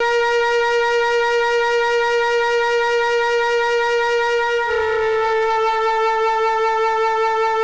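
Background music: one long held wind-instrument-like note, steady and rich in overtones, that shifts slightly lower in pitch a little over halfway through.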